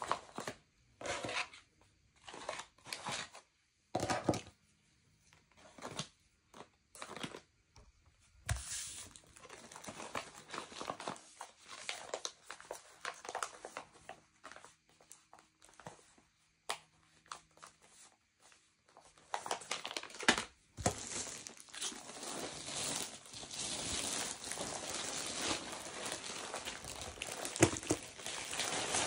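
Plastic packaging crinkling and rustling as it is handled and unwrapped. A string of short separate rustles gives way, about eight seconds in, to near-continuous crinkling, louder again in the last third.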